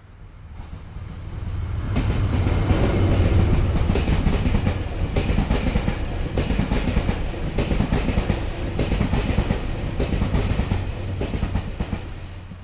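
A train passing close by on the rails, getting louder over the first two seconds, then a steady low rumble with a rapid clickety-clack of wheels over rail joints.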